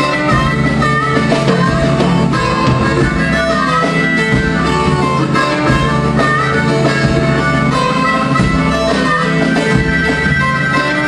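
Blues harmonica cupped against a vocal microphone, playing a solo line with bent, sliding notes over acoustic guitar accompaniment.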